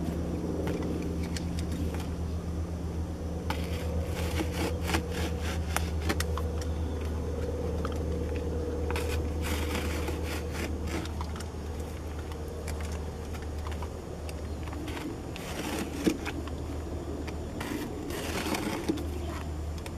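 Foil-faced ceramic fibre mat crinkling and scraping as it is handled and cut with a utility knife: scattered crackles and scrapes, busiest in stretches through the middle and near the end. A steady low hum runs underneath.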